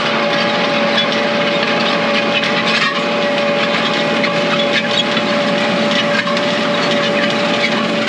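Old White disc harrow's steel discs grinding and scraping through rocky plowed soil: a very loud, steady metallic racket with a steady ringing tone running through it.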